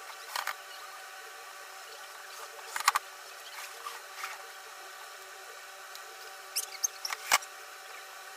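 Scattered light knocks and scrapes of wooden parts of a homemade pantorouter being handled and fitted, with a sharper knock about seven seconds in, over a steady faint hum.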